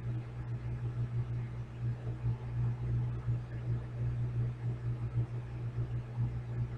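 Electric fan running with a steady low hum and a faint hiss.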